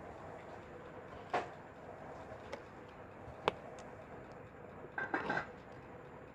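A few light clicks and a brief clatter of small hard objects being handled, over a faint steady hum.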